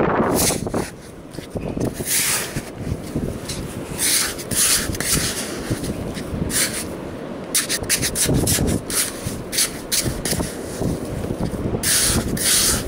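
Small hand trowel scooping and scraping damp beach sand in repeated short strokes, with wind rumbling on the microphone.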